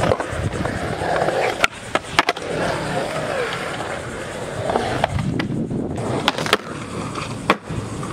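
Skateboard wheels rolling over concrete, broken by several sharp clacks of the board and trucks hitting the ground.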